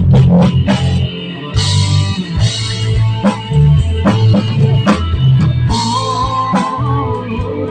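A band playing rock music: guitar over bass and a drum kit keeping a steady beat, with a sustained guitar line about six seconds in.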